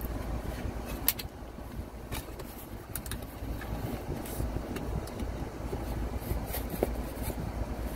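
Steady low rumble inside a car, with a few sharp clicks and scrapes as the metal crown cap of a glass Coke bottle is pried at by hand.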